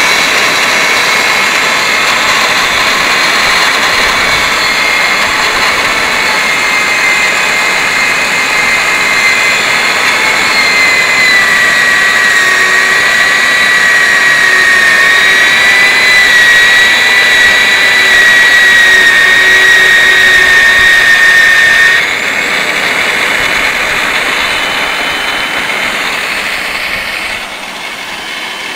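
JAY JMB23 magnetic base drilling machine running under load as its drill bit cuts into a metal plate: a loud, steady high whine that dips slightly in pitch partway through. The whine cuts off suddenly about two-thirds of the way in, and the machine runs on more quietly, dropping again near the end.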